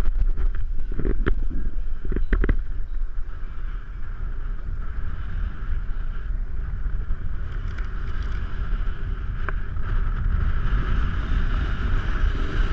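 Snow tube sliding down a groomed snow lane: a steady rumble and hiss of the tube running over the snow, with wind on the microphone. A few knocks come in the first two or three seconds.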